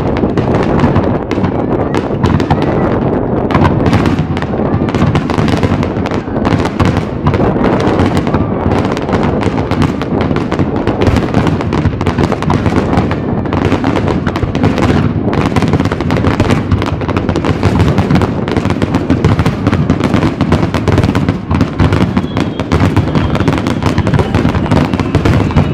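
Aerial fireworks display in a rapid barrage: many shells bursting in quick succession, their bangs overlapping with hardly a pause.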